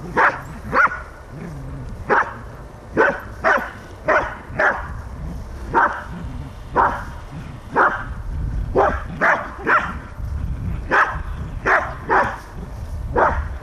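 Dog barking in play: short, sharp barks, about one or two a second at irregular spacing.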